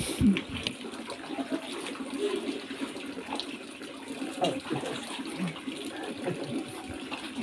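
Water running steadily in a small walled fish pond, a continuous even trickle like a tap filling a tank.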